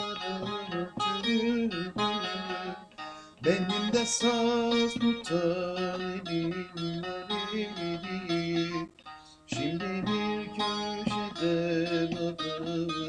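Bağlama (long-necked Turkish saz) being plucked and strummed, playing a folk melody in a steady rhythm, with two brief pauses, about three and about nine seconds in.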